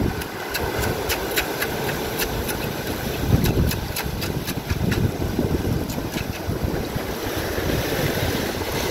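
Sea surf surging and washing over shoreline rocks, a steady rush with wind on the microphone. A quick run of sharp clicks and taps in the first half, made while mussels are scraped off the rock.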